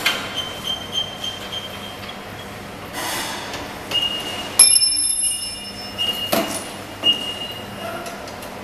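Conveyor-belt needle detector machine giving short high-pitched tones on and off, the longest and loudest about five seconds in, with a few knocks and clatters in between.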